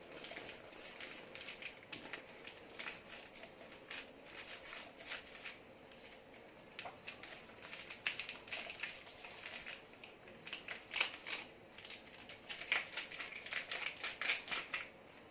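Packet of instant latte coffee being opened and handled: irregular crinkling, crackling and small clicks of the packaging. The sound gets busier and louder in the second half.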